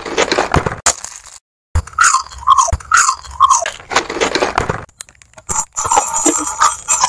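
Close-miked eating: crunchy bites and chewing into a glazed, sauced snack on a skewer, with mouth noises.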